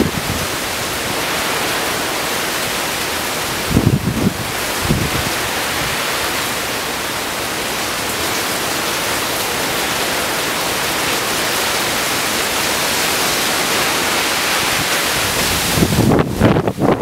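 Heavy rain and strong wind from a hurricane feeder band, a loud steady hiss, with gusts buffeting the microphone about four seconds in and again near the end.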